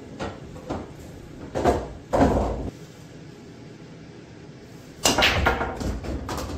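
A few dull knocks in the first three seconds. Then, about five seconds in, a nine-ball break: the cue strikes the cue ball, which smashes into the rack, and the balls clack together and knock off the cushions in a quick run of impacts.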